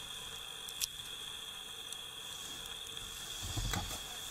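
Steady outdoor ambience: an even hiss with a constant high-pitched whine. A single short click comes about a second in, and a low muffled thump near the end.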